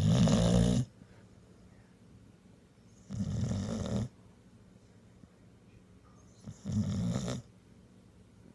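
Sleeping pitbull puppy snoring: three snores about three seconds apart, each lasting under a second, the first the loudest.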